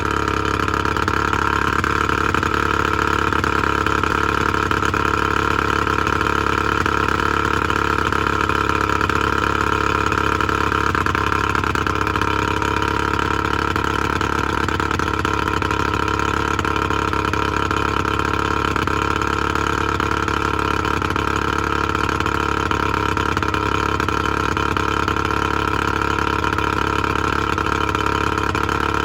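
Evinrude 70 HP two-stroke outboard running steadily at idle on water muffs, its test run after a new head gasket.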